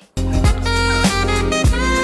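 Background music, a jazzy track with held melodic notes over a steady beat, cutting back in abruptly just after a brief gap.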